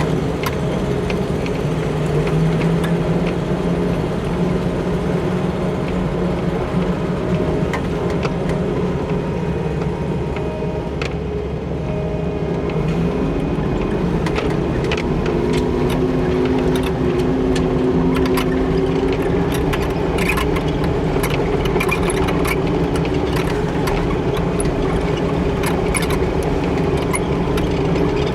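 Diesel engine of a farm machine running, its speed easing a little near the middle and then rising to a higher, steady pitch. Scattered knocks and rattles come through in the second half.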